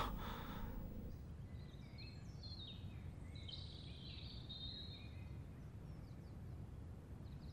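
Faint birds chirping in a quiet room, short rising and falling chirps over a low steady hum.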